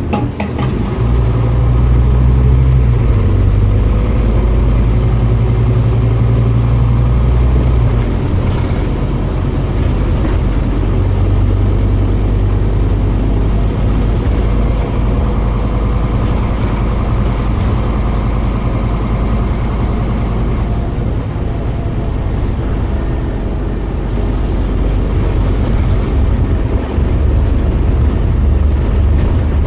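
Scania OmniCity single-deck bus heard from inside the passenger saloon while driving. The engine's low drone shifts pitch in steps several times, and there is steady road noise underneath.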